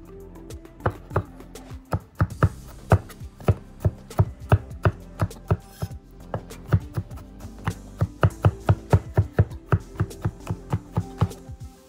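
Garlic being minced with a santoku-style knife on a bamboo cutting board: a rapid, uneven run of sharp knocks as the blade strikes the wood, several a second. Background music plays underneath.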